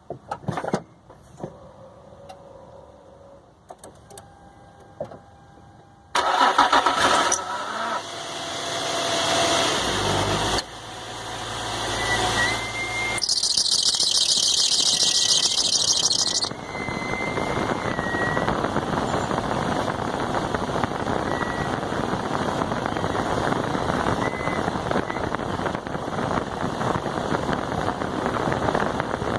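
2005 Infiniti G35x's 3.5-litre V6 cranked and started after a few clicks about six seconds in, then running and settling to a steady idle. A thin, wavering high squeak comes and goes over the engine for several seconds: the squeaky noise being traced on this car.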